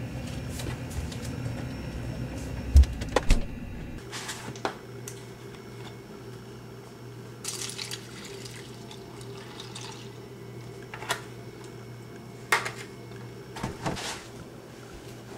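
Milk poured from a plastic gallon jug over a bowl of cereal, preceded by two sharp knocks about three seconds in and followed by scattered clunks of the jug being handled, over a steady low hum.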